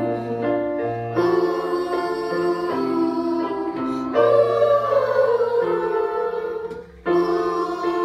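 Electronic keyboard playing a simple tune while a group of children sing along, with a brief break about seven seconds in.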